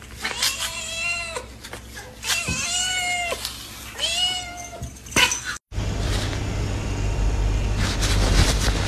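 A cat meowing three times, each a long drawn-out meow that rises and falls. After about five and a half seconds the sound cuts off abruptly to a steady low rumble.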